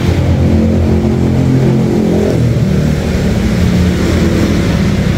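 Honda Brio's four-cylinder i-VTEC engine running, heard from the engine bay, with its pitch shifting slightly.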